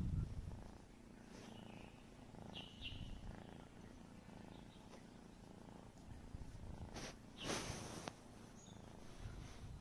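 Orange tabby kitten purring steadily, close to the microphone, while being stroked. A brief rustle about seven seconds in.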